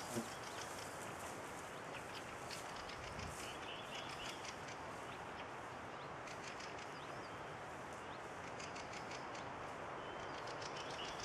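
Birds chirping and trilling in quick repeated high notes over a steady rushing background, with one brief thump just after the start.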